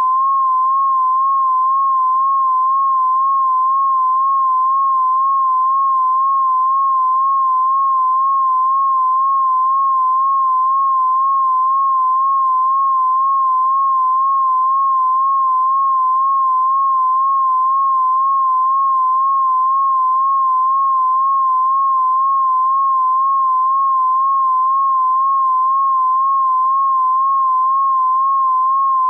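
Electronic 'mosquito tone' sound effect: a single loud pure tone near 1 kHz, held without a break, its pitch wobbling slowly and evenly up and down.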